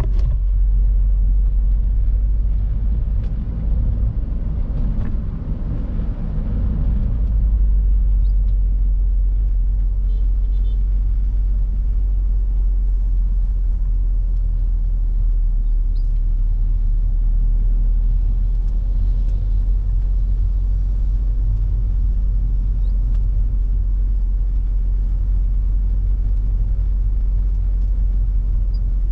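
Peugeot 406 car on the move: a steady low rumble of engine and road noise, with a brief swell of wider rushing noise about five seconds in.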